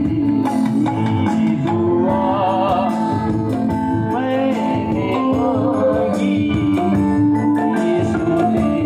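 A man singing a worship song into a microphone, amplified, with a wavering vibrato on held notes, over a steady instrumental accompaniment.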